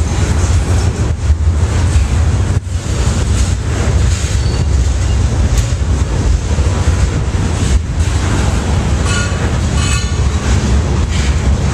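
Freight train rolling past close by, its lumber-loaded centerbeam flatcars giving a loud, steady, deep rumble of steel wheels on the rails.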